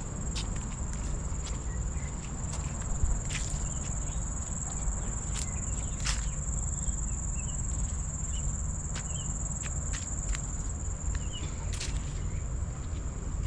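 Steady high-pitched insect drone, with scattered sharp clicks and a few faint bird chirps.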